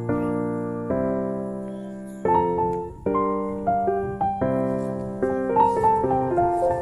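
Background piano music: sustained chords struck about once a second, with a melody of single notes over them from about two seconds in.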